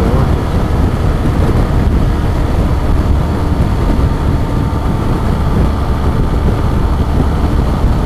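BMW GS Adventure motorcycle cruising at highway speed: a steady rush of wind over the microphone mixed with engine and road noise.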